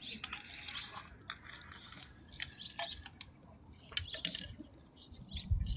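Irregular small clicks, crackles and rustles of things being handled, with a few low thumps near the end.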